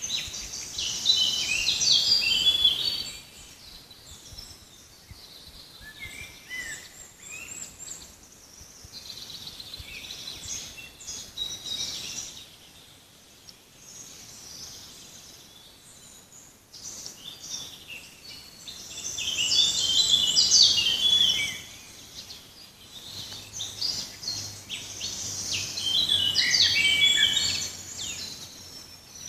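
Forest songbirds singing: loud bouts of rapid, high song phrases in the first few seconds and again through the last third, with quieter phrases between, over a faint background hiss.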